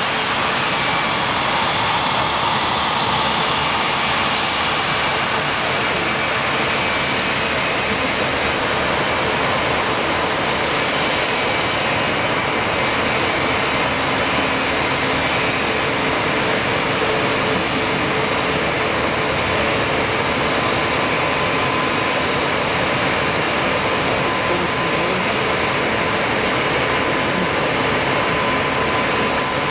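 Bombardier CS300's Pratt & Whitney PW1500G geared turbofan engines running at idle as the airliner taxis, a steady rushing jet noise with faint steady whining tones.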